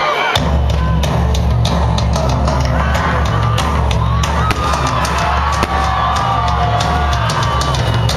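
Loud rock music with a heavy drum beat starts about half a second in, with firework bangs and crackles over it.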